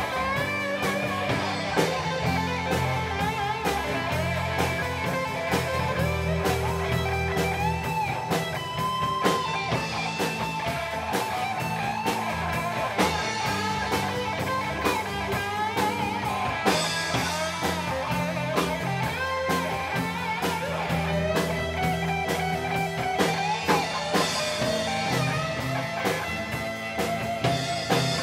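Live rock band playing electric guitars over bass guitar and a drum kit, the guitars carrying a wavering melodic line.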